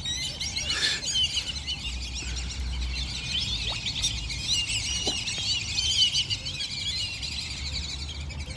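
A flock of ducks giving a dense chorus of high-pitched squeaky whistles and peeps, many voices overlapping without a break.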